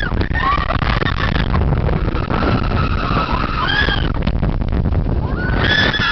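Onboard the Blue Fire launched roller coaster: wind buffeting the microphone over the rumble of the train on the track, with riders' high-pitched screams rising and falling several times, a louder one starting near the end.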